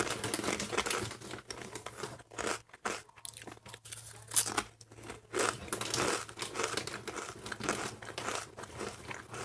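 A crinkly snack bag being handled, crackling in irregular bursts with some crunching, over a steady low hum.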